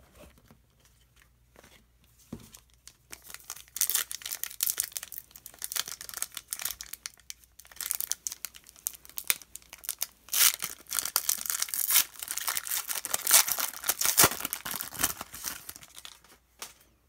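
Wrapper of a 2016-17 Panini Excalibur basketball card pack being torn open and crinkled by hand: quiet for the first few seconds, then a long run of crackling tears and crinkles that grows loudest past the middle.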